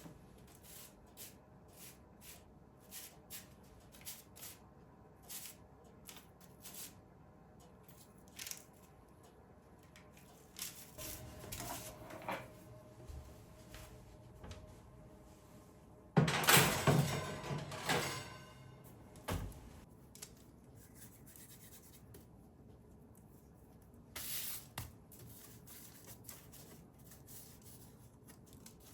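Handling sounds: a run of light, evenly spaced taps, then rustling, with one louder burst of scraping clatter about midway.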